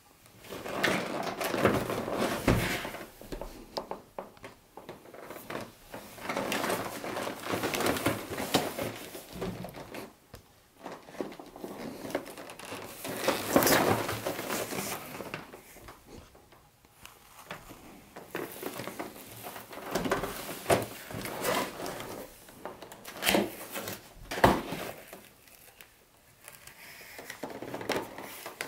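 Cardboard box being handled and opened: irregular scraping and rubbing of cardboard as the box is slid, tilted and its flaps pulled open, in uneven spells with a few sharp knocks and short pauses between.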